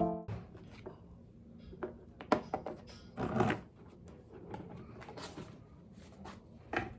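Small household handling sounds in a small room: scattered light clicks and knocks, with a brief rustle a little past the middle.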